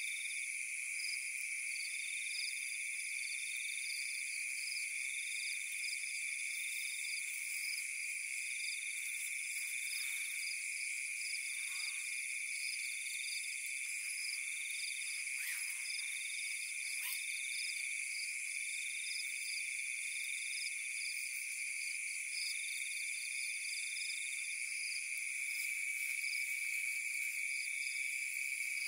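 Night chorus of insects and frogs: steady high-pitched trilling, with a call of short pulses repeating every second or so. A few faint brief sounds come near the middle.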